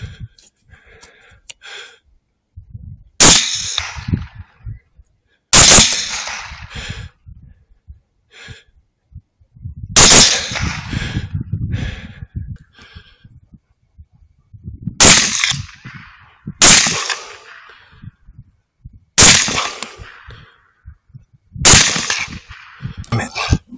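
Seven rifle shots from a Savage MSR 10 in 6.5 Creedmoor, fired one at a time with two to five seconds between most of them. Each shot is a sharp crack followed by a short fading echo.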